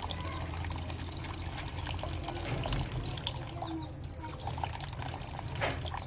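Thin stream of water trickling and splattering onto a wet barrel lid, with irregular splashes as a rose-ringed parakeet bathes in it and flaps its wet wings; a bigger splash comes near the end.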